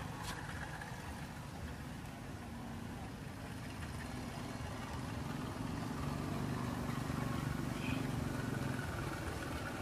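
Steady low rumble of outdoor background noise, growing slightly louder past the middle.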